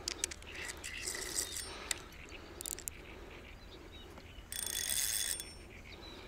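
Spinning reel worked during the fight with a large carp: scattered clicks and short rattles, then about four and a half seconds in a loud buzzing burst of nearly a second, typical of the drag giving line to the pulling fish.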